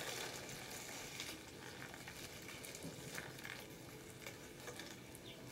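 Quiet room tone: a faint steady hiss with a few soft ticks and rustles scattered through it.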